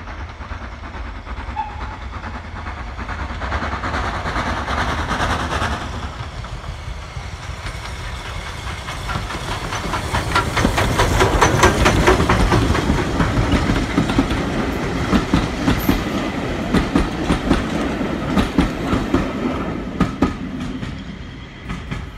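The LNER A3 Pacific Flying Scotsman, a three-cylinder steam locomotive, passes close by with its train, its working exhaust growing louder as it nears. The coaches then roll past with a rhythmic clickety-clack of wheels over rail joints, which dies away near the end.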